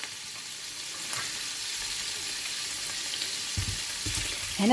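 Shrimp frying in hot oil in a pan, a steady sizzling hiss, with a few soft low thuds near the end.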